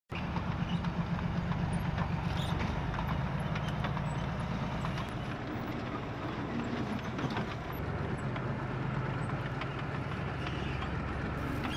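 A tank's engine running steadily with a low drone, with small clicks and rattles over it.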